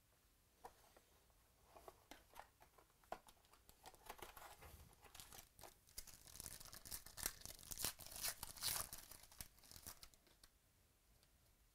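Shiny foil trading-card pack wrapper being torn open and crinkled by hand. A few quiet clicks of handling at first, then rustling and crinkling that grows about four seconds in, is loudest around seven to nine seconds, and stops shortly before the end.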